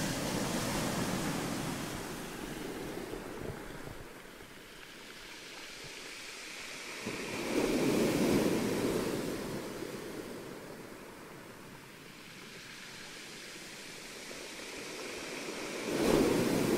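Ocean surf: waves swelling and washing out, two big swells about eight seconds apart.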